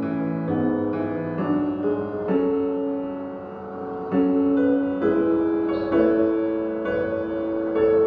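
Solo piano playing a slow introduction to a gospel song: chords struck and held, with a simple melody moving on top.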